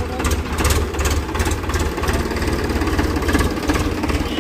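Powertrac Euro 50 tractor's diesel engine running steadily, a low, evenly pulsing rumble.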